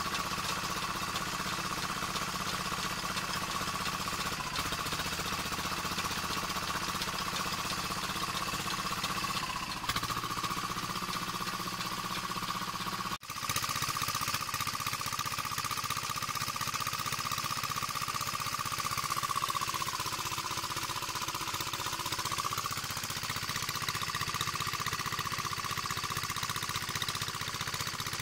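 Small engine running steadily while it drives a belt-driven chaff cutter's flywheel and blades as green fodder is fed in to be chopped. There is a steady whine over the engine drone that sags in pitch briefly about two-thirds of the way through, then recovers.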